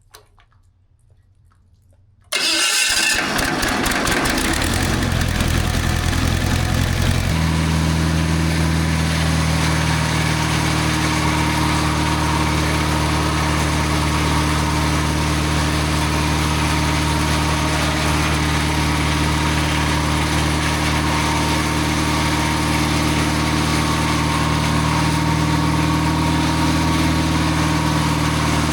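The circle sawmill's engine comes on abruptly about two seconds in, changes pitch for a few seconds, then settles at about seven seconds into steady running with an even hum.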